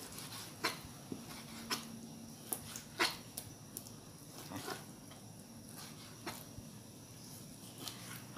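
Kitchen knife slicing raw chicken thigh on a plastic cutting board: a series of irregular sharp taps as the blade meets the board, the loudest about three seconds in.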